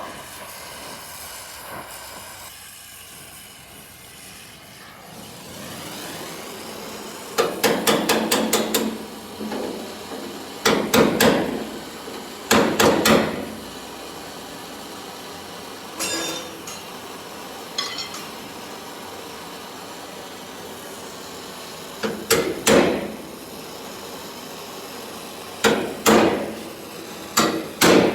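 Hammer blows on a steel car-body panel being beaten out of a dent, in short runs of quick metallic strikes separated by pauses, over a steady hiss.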